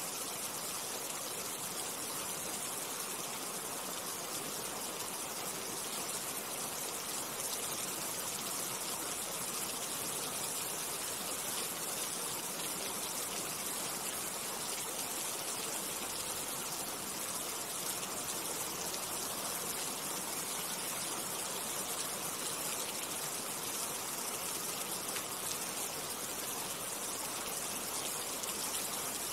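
Steady rushing water: an even, unbroken hiss with no pauses.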